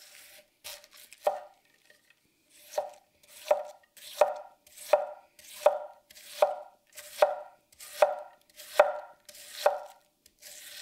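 Red cabbage being shredded with a wide-bladed sushikiri kitchen knife on a wooden cutting board, in a steady rhythm of about one and a half cuts a second. Each cut is a crisp slicing swish through the leaves, ending in a sharp knock of the blade on the board.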